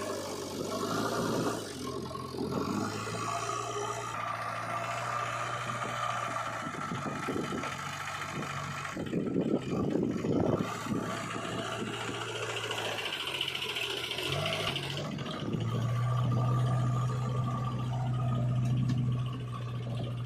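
Diesel engines of a JCB 3DX backhoe loader and tractors running while mud is loaded. The engine note rises and falls, with a stretch of rough clattering about halfway through.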